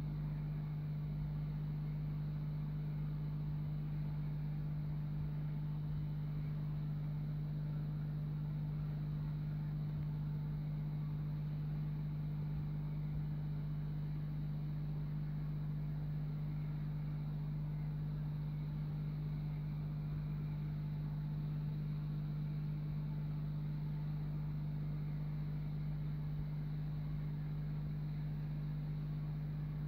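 Aquarium filter pump humming steadily at one low pitch.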